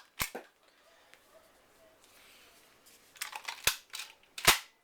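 Wipeout Pistol Splat toy dart pistol being primed and fired: sharp plastic clicks and snaps. There is a snap just after the start, a quick run of clicks from the priming lever about three seconds in, and a louder firing snap near the end.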